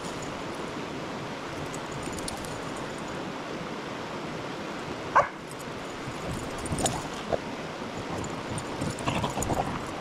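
A dog yipping: one sharp yip about halfway through, then several shorter yips near the end, over the steady rush of a shallow stream.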